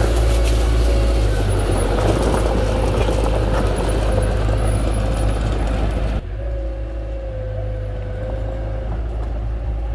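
Diesel engine of heavy construction machinery running steadily, with a held whining tone over the low hum; the noise drops abruptly about six seconds in.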